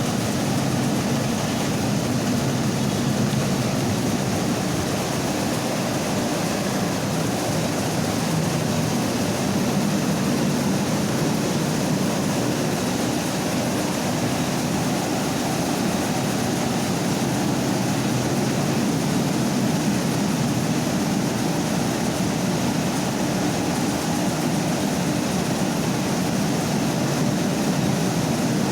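Mini rice milling machine running steadily: a continuous, even mechanical drone with a low hum.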